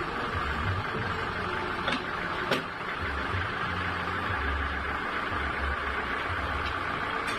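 Sawmill machinery running steadily with an even, noisy whir over a low, uneven hum, and a sharp knock about two and a half seconds in.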